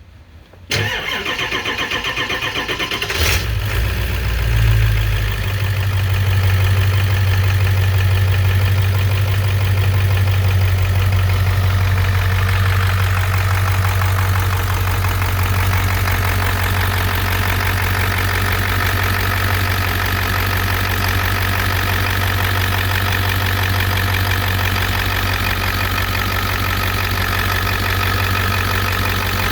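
Ford 7.3 L Power Stroke V8 turbo diesel cranked over by the starter for about two and a half seconds, then catching. It flares briefly and settles into a steady idle, with a higher whistle joining the idle from about twelve seconds in.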